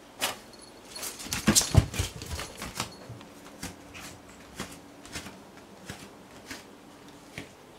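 House cat scrabbling after a cockroach among boots and shoes: a loud burst of scuffling and knocks about a second in, then light single taps about every half second.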